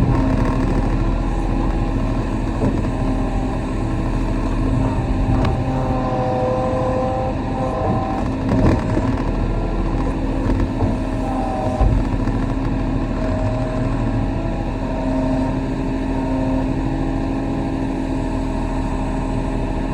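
Kobelco SK35 mini excavator's diesel engine running steadily while it digs, with higher tones coming and going as the machine works. A few short knocks sound about 5, 9 and 12 seconds in.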